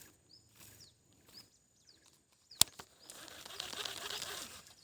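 Faint small-bird chirps repeating about every half second. A single sharp click comes about two and a half seconds in, then a short stretch of rustling noise near the end.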